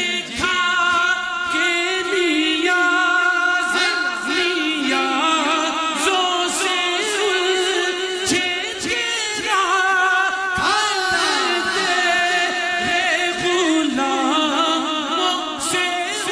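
A man singing a naat a cappella into a microphone, drawing out long held notes and sliding, ornamented runs.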